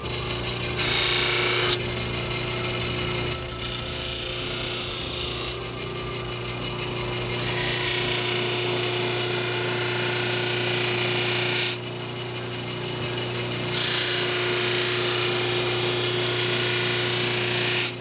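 Grizzly knife buffer/grinder running with a steady hum while a rough-ground D2 steel knife blade is pressed to the spinning wheel to polish the edge. There are four passes, the first brief and the others a few seconds each, each one a hissing grind.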